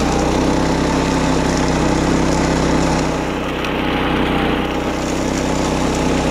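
Wing mower's small engine running at a steady speed while mowing grass, with a slight dip in loudness about halfway through.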